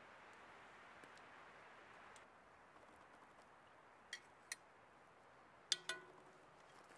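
Faint steady sizzle of oil frying donuts in a cast-iron Dutch oven, then light clicks of a metal spoon, and near the end two sharper, ringing metal clinks as the spoon knocks against the pot.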